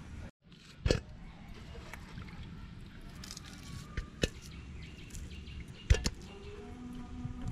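Washed hilsa fish pieces being handled and set down in an empty aluminium pot: wet handling with a few sharp knocks against the metal, loudest about a second in and again near six seconds.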